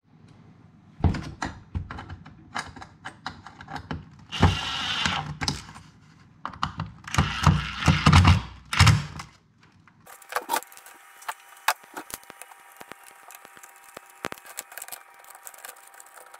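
Cordless drill-driver running in short bursts as it drives screws into the jump box's plastic case, with knocks and clicks of parts being handled. After about ten seconds the drill stops, and small sharp clicks of wires being fitted go on over a faint steady hum.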